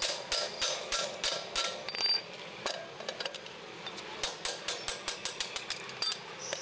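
Hand hammer striking a steel punch to drive out the front-fork pivot pin of an auto-rickshaw, with sharp metal-on-metal blows that ring briefly. There are about three blows a second at first, a pause near the middle, then a quicker run of about four or five a second from about four seconds in.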